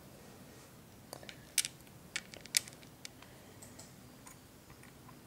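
Several light, sharp clicks of small plastic 1x2 Lego tiles being handled and set down on a Lego baseplate, scattered irregularly, the loudest about one and a half and two and a half seconds in.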